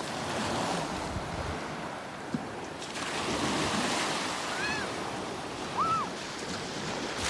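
Small waves breaking and washing up a shingle beach in a steady hiss that swells and eases. Partway through come two brief high cries, about a second apart.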